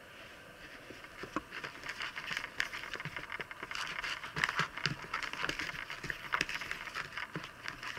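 Thick, sticky slime being stirred with a wooden stick in a plastic bowl, as glitter is worked in: an irregular run of wet clicks and crackles that starts about a second in and gets busier.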